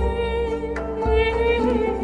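Background music: slow, soft instrumental with sustained notes over a steady bass, with a faint singing voice.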